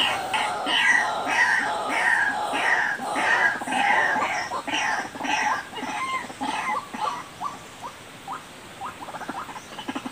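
White-breasted waterhen (ruak-ruak) calls: a run of harsh repeated notes, about two a second. After about six seconds they turn into quicker, shorter notes that fade. It is the call used to lure the birds.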